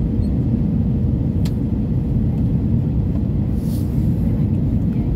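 Steady low rumble of an Airbus A320neo heard from inside the passenger cabin in flight, with a faint steady hum. A single sharp click comes about a second and a half in, and a brief hiss follows near the end.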